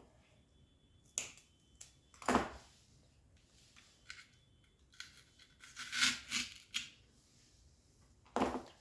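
Hands handling craft materials: a scattering of short rustles, scrapes and clicks, about half a dozen, loudest around the middle and again near the end.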